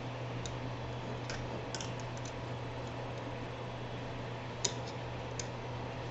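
Scattered light clicks and taps of small metal hardware being handled and fitted by hand on a 3D printer's motor bracket, the sharpest about two-thirds of the way through, over a steady low hum.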